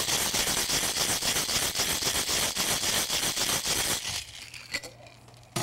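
Ice rattling hard inside a Boston shaker (metal tin capped on a pint glass) shaken vigorously, a fast, dense clatter that stops about four seconds in. A single sharp knock comes near the end.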